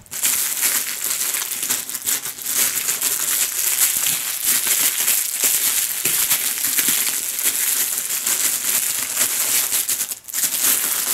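Cellophane film wrapped around a head of iceberg lettuce crinkling and crackling continuously as it is gripped and worked by hand, with a short break about ten seconds in.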